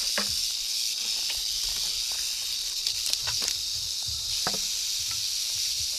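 Rattlesnakes rattling together in a steady, high, continuous buzz, from several snakes just released and still disturbed. A few light crackles are heard now and then, about a second in and around three and four and a half seconds.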